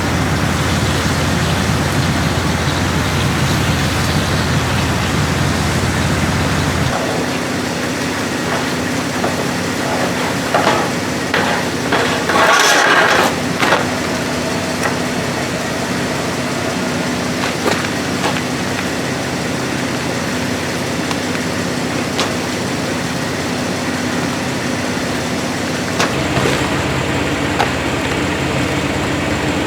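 Jeep engine idling steadily, left running to recharge a battery drained to about 10.5 volts. Its low rumble drops away abruptly about a quarter of the way in and comes back near the end, and a brief louder rustling noise comes about midway.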